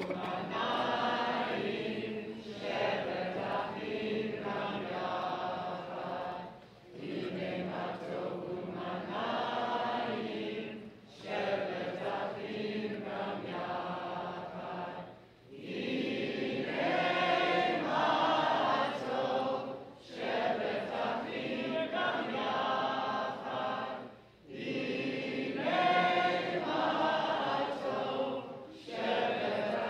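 A congregation singing a Hebrew song together, in sung phrases of about four seconds with short breaks for breath between them.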